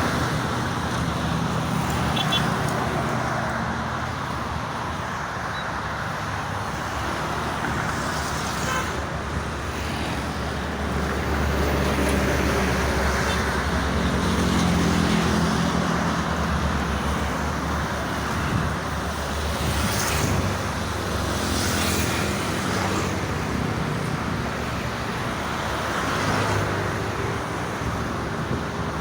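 Steady toll-road traffic noise: a continuous wash of passing cars and trucks that swells and fades as vehicles go by. A few faint high chirps show near the start.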